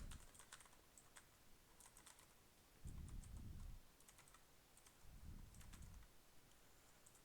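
Faint scattered clicks of keys being pressed on an iBox Aurora K-2 mechanical keyboard with blue switches, with two dull low rumbles, about three and five seconds in.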